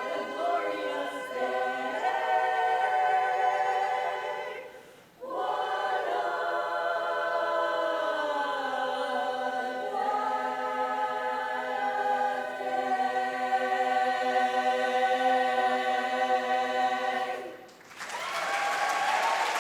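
A cappella chorus singing chords in close harmony. The singers break off briefly about five seconds in, then hold a long final chord that stops near the end, and applause starts right after.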